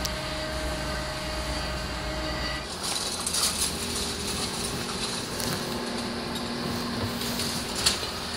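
Ride noise of an airport passenger vehicle heard from inside: a steady low rumble with a hum. About three seconds in, it gives way to a brighter hiss with a steady mid-pitched whine, and there is a single sharp click near the end.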